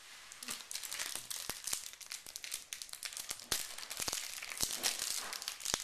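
Foil wrapper of a 1991 Pro Set Platinum football card pack being torn and peeled open by hand: continuous crinkling and crackling with many sharp clicks.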